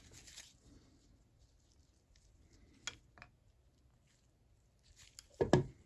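Faint handling noise with a few small, sharp metal clicks as a tiny detent spring and plunger are worked into a ratchet head with needle-nose pliers, then one louder knock near the end.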